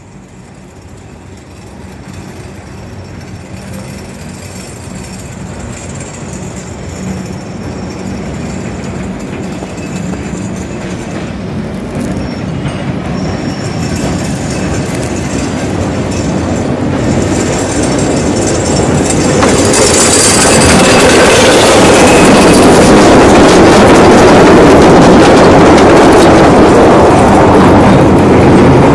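A 600mm narrow-gauge electric mine locomotive hauling a train of loaded coal wagons running past close by. The sound grows steadily louder from the start and is loudest over the last third as the train passes.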